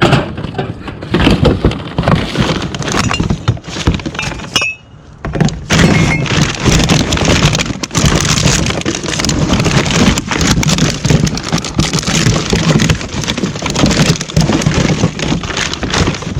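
Loud, continuous clattering and knocking of hard objects being handled, with a brief lull about four and a half seconds in.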